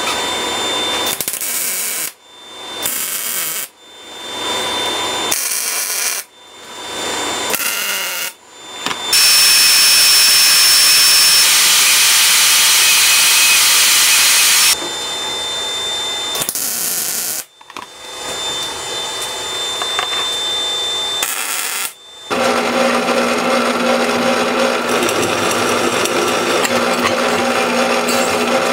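A run of short clips of power tools working steel. First come several brief runs that each swell up and stop, then a loud steady stretch where a band saw cuts steel plate. Near the end a drill press runs steadily.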